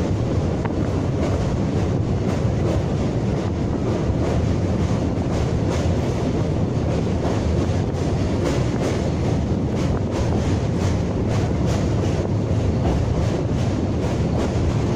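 Train running across a steel truss railway bridge, heard from aboard: a steady, loud low rumble of wheels on rails with a rapid rattling clatter over it.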